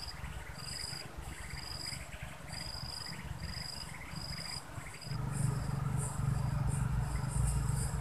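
Insects chirping: a short high note repeated about twice a second over a faint pulsing buzz. A low rumble comes in about five seconds in.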